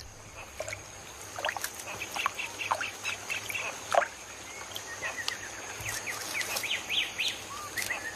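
Wild animal calls: many short, high chirps and quick sweeping notes scattered throughout, over a steady high whine.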